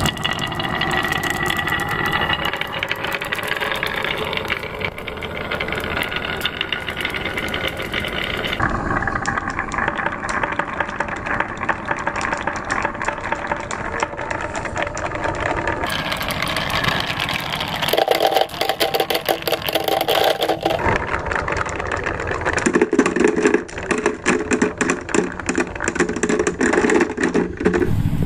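Many marbles rolling and clacking through carved wooden channels, a dense, continuous rattle of small clicks over a rolling rumble. The rattle changes abruptly several times.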